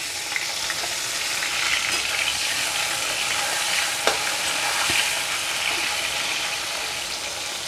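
Turmeric-coated vegetable pieces, brinjal strips among them, sizzling steadily in hot oil in a metal kadai, with a metal spatula stirring and turning them. A sharp metal tap comes about four seconds in.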